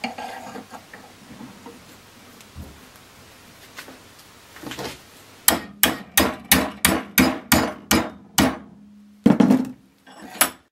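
Lump hammer striking a flat bar clamped in a bench vise to bend it. Quiet handling at first, then about halfway through a quick run of about a dozen blows, roughly four a second, a brief ring, and a couple more heavy blows near the end.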